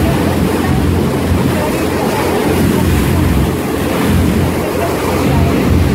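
Motorboat running at speed: a steady engine drone under the rushing of its churning wake, with wind on the microphone.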